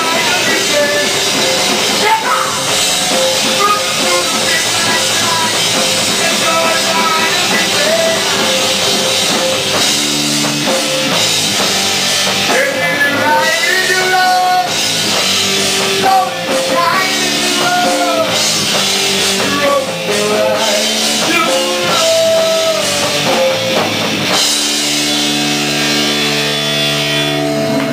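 Hardcore band playing live: distorted electric guitars and a drum kit with shouted vocals, loud and dense, ending on long held chords in the last few seconds.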